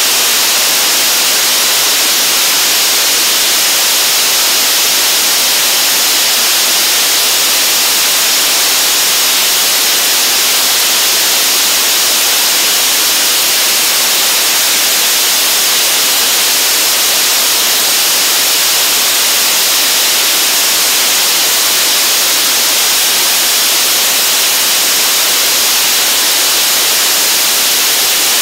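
Five 440 N bi-propellant liquid apogee motors of the Gaganyaan service module propulsion system firing together in a ground hot test: a loud, steady rushing hiss that holds even throughout.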